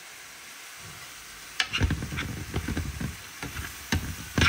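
Pepper steak sizzling gently in a skillet; from about a second and a half in, a metal spoon stirs and scrapes through the meat and peppers in the pan, with a sharper knock against the pan near the end.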